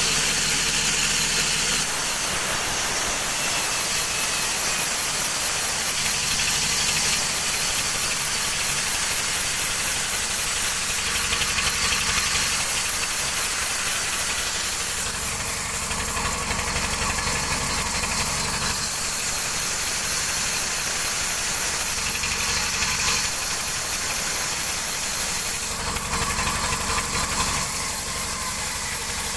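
Sawmill running steadily: the big saw's machinery drones under a loud high hiss of the blade cutting through wood, with small changes in tone a few times but no pause.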